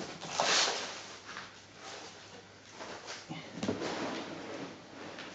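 Rustling and scraping of objects being shifted about, with a louder rustle about half a second in.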